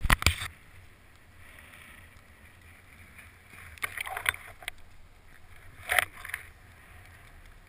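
Rustling and bumping handling noise on an action camera riding a chairlift: three short bursts, at the start, about four seconds in and about six seconds in, over a low steady wind rumble.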